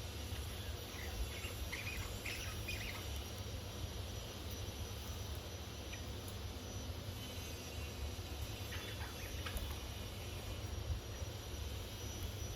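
Pet budgerigars giving short chirps, a quick cluster about one to three seconds in and a few more about nine seconds in, over a steady low hum.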